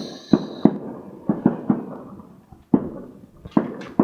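Fireworks going off: a series of sharp bangs and pops at uneven intervals, with a faint high whistle fading out in the first half second.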